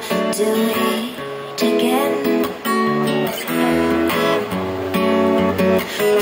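Live band music: strummed acoustic guitar chords, with a bass line coming in about four seconds in.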